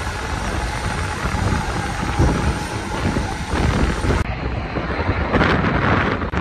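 Steady aircraft engine noise on a flight line, with wind buffeting the microphone. After a cut about four seconds in, a four-engine turboprop transport is heard taxiing, its sound swelling in gusts.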